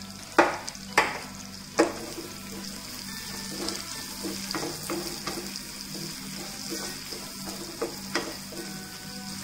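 Sliced onion, capsicum and cashews frying in a nonstick pan and being stirred with a slotted spatula. Three sharp knocks of the spatula on the pan come in the first two seconds, then a run of quieter stirring strokes over a steady sizzle.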